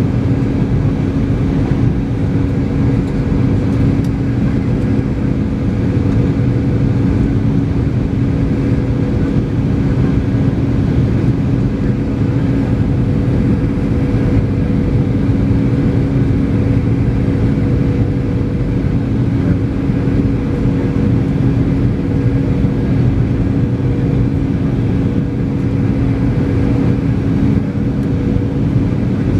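Steady cabin noise of a Boeing 737-800 airliner in flight on descent: the even rush of air past the fuselage with a constant hum from the CFM56-7B engines.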